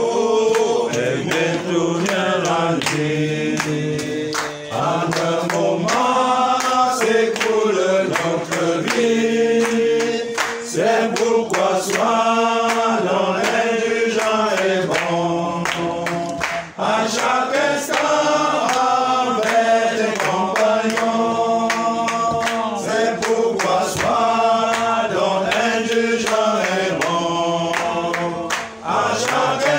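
A small group of voices singing a hymn or chorus together in unison, holding long notes and stepping from note to note, with a steady beat of sharp claps about twice a second.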